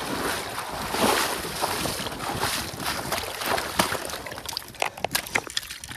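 Water splashing and sloshing in a shallow stream as a hooked trout thrashes and is brought to a landing net: dense at first, thinning to scattered splashes and sharp clicks over the gravel after about four seconds.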